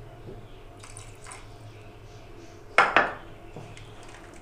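Wooden spoon stirring soup in a metal cooking pot, knocking against the pot a few times, the loudest knock about three seconds in, over a low steady hum.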